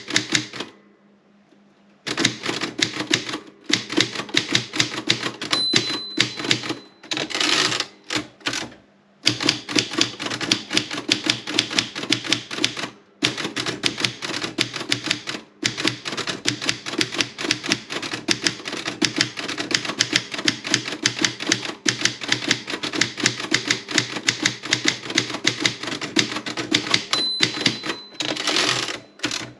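Erika 30 manual typewriter being typed on: fast runs of sharp key strikes with short pauses. Twice the margin bell rings with a short high ding, and a second or so later comes the longer rattling slide of the carriage return.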